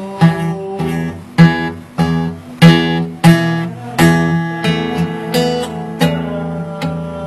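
Acoustic guitar being strummed: a slow, even run of chords, one stroke roughly every two-thirds of a second, each ringing on and changing from one chord to the next.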